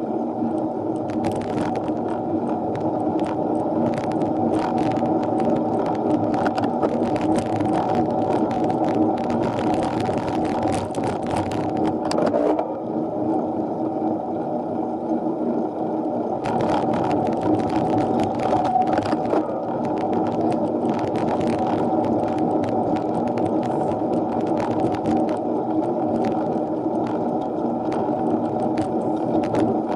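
Steady, muffled road and wind noise of a mini velo bicycle climbing, with scattered light clicks and rattles through most of it.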